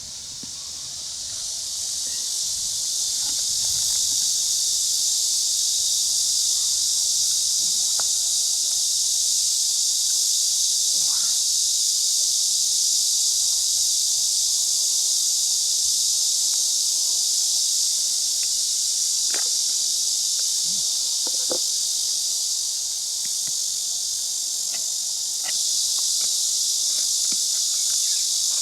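Steady chorus of insects, an unbroken high-pitched hiss that builds up over the first few seconds, with a few faint clicks and taps beneath it.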